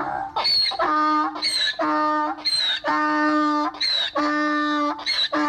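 Donkey braying in a long run of hee-haws: a short, high, wheezing in-breath alternates about once a second with a longer, lower, steady out-breath tone.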